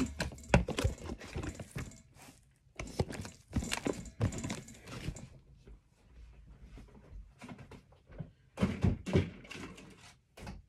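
Irregular knocks and clatters of plastic ingredient tubs, lids and a metal spoon being handled and set down on a worktop, in three short bursts with quieter gaps between.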